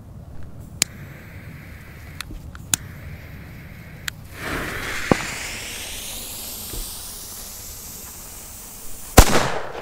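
An Xplode cube firecracker with 5.5 g of net explosive mass being set off. A few small clicks come first, then a hiss begins about halfway through as the fuse is lit. Near the end there is one sharp, very loud bang with a short echo, described as a really big bang.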